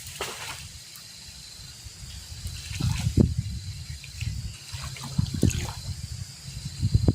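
Water trickling and splashing, with irregular low knocks that are loudest about three seconds in and again near the end.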